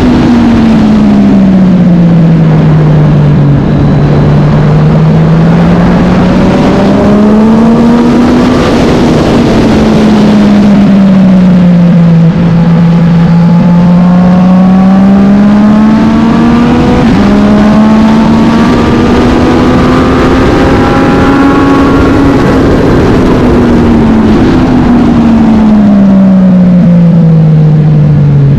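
Racing motorcycle engine running hard and steadily loud. Its pitch rises and falls in long, slow sweeps as the throttle is opened and eased off, with a few quick steps in pitch.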